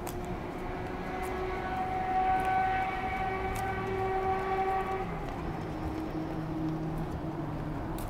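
Vehicle noise: a steady pitched tone with overtones held for about four and a half seconds, then giving way to a lower steady hum.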